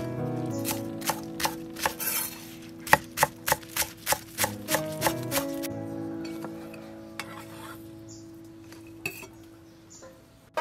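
Kitchen knife chopping spring onions on a wooden cutting board: sharp knocks about two or three a second that stop about halfway through. Background music plays under and after them.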